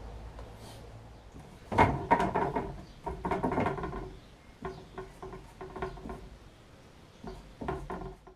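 A run of sharp knocks and clatters, the loudest about two seconds in, with scattered quieter ones after and a faint low hum before them; the sound cuts off abruptly near the end.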